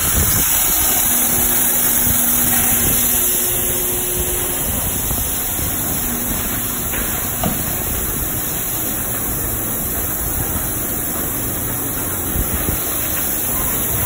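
Belanger SpinLite tunnel car wash equipment running: a steady hiss of water and foam spraying from the arches, over a low machinery hum.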